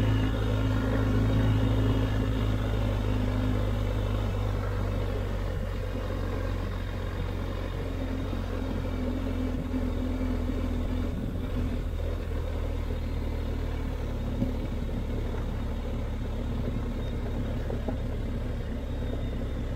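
BMW R 1250 GS Adventure's boxer-twin engine running steadily, a low even drone that eases slightly over the first few seconds and then holds.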